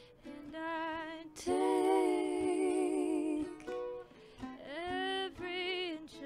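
Ukulele playing under a woman's layered vocal harmony: several takes of one voice holding long notes with vibrato, loudest in a held chord about two seconds in.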